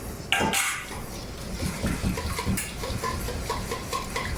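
Buttermilk and egg being mixed by hand in a bowl: the liquid sloshes, with a louder splash near the start, then light rhythmic taps of the utensil against the bowl.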